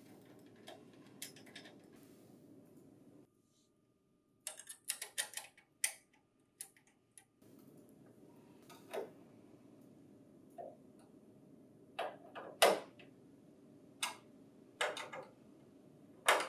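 Scattered sharp metal clicks and clinks as a steel mounting bracket is fitted and its screws are set in and driven with a screwdriver: a quick cluster about five seconds in, then single clicks every second or two.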